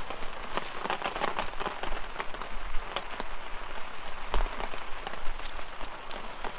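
Light rain pattering, with irregular sharp clicks and crackles from birch-bark tinder being lit and dry twigs being handled over a campfire ring.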